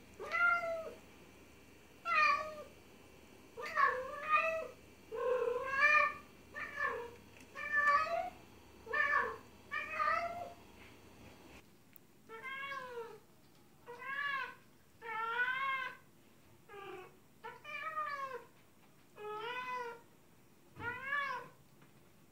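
Calico female cat in heat calling over and over, a meow about every second. The calls rise and fall in pitch, and from about halfway on they become longer and more drawn out.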